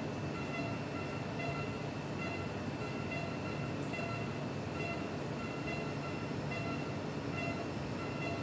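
Steady mechanical hum with faint high whining tones that pulse on and off evenly.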